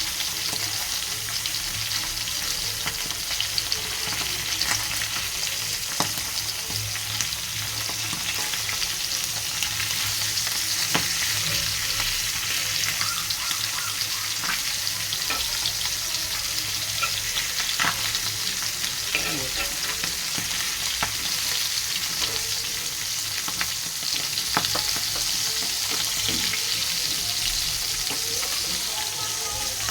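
Food frying in hot oil in a pan: a steady sizzle, with occasional sharp clicks and scrapes of a utensil.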